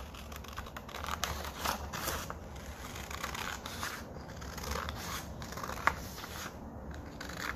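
Scissors cutting along a creased fold line in a long strip of paper: a run of short snips about every half second as the blades close through the paper, with one sharper click about six seconds in.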